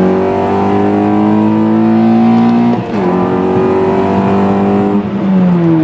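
Honda K24Z7 four-cylinder of a ninth-generation Civic Si, with a 3-inch catless exhaust (Skunk2 downpipe, N1 muffler), accelerating hard and sounding really loud. The engine pitch climbs steadily, drops sharply at an upshift a little under three seconds in, and climbs again through the next gear before falling off near the end.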